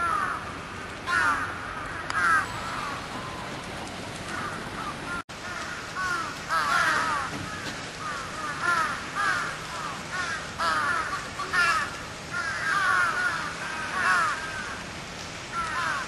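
Crows cawing over and over in quick runs of short, falling calls, with a momentary cut-out about five seconds in.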